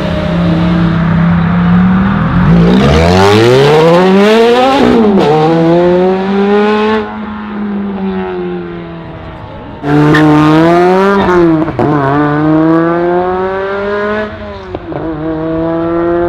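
A BMW M5 accelerating hard away, its engine note climbing from a steady rumble about three seconds in and dropping back once at an upshift. After a quieter lull, a Ferrari F430's V8 accelerates hard from about ten seconds in, its revs climbing and falling back at each of two upshifts.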